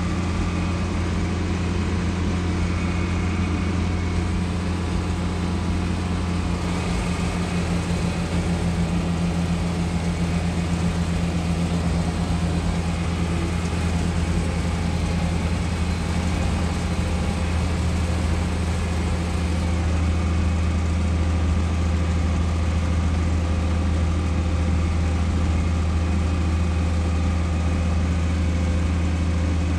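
Farm tractor engine running steadily as the tractor drives along a gravel road, heard from inside the cab; it grows a little louder about two-thirds of the way through.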